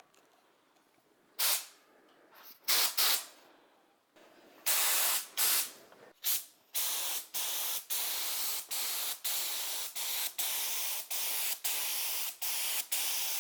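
Sprayer applying a coat of wood finish, hissing in spurts: a few separate spurts at first, then a long run of bursts with brief gaps between them.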